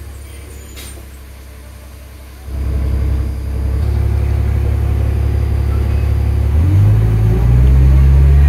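Transit bus's Cummins ISL diesel engine heard from inside the cabin, running low for about two and a half seconds, then throttling up as the bus accelerates, with a deep steady drone. The engine note steps up in pitch near the end.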